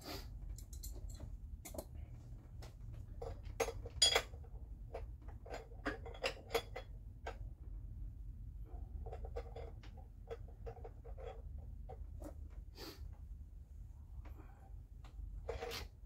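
Scattered light metal clinks and clicks of hand tools and fittings being worked in an engine bay as an oil filter adapter is turned into position, with the sharpest knock about four seconds in, over a low steady hum.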